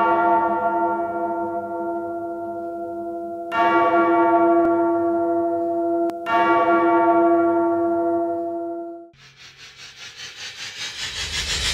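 A deep bell tolling, struck about every three seconds, each stroke ringing on and slowly fading. About nine seconds in the ringing dies away and a pulsing noise swells up, growing louder toward the end.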